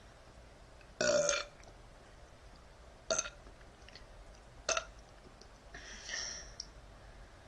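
A woman burping four times: a loud half-second burp about a second in, two short sharp ones, then a softer, longer one near the end.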